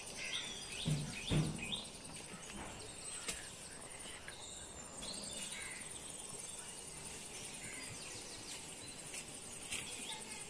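Outdoor ambience: an insect's steady, high-pitched pulsing trill with scattered bird chirps, and two dull knocks about a second in.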